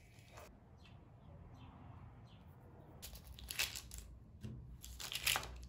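Two bursts of crinkling and grainy rustling, about three and five seconds in, as soft lemon lokum pieces are peeled off baking paper and rolled in granulated sugar.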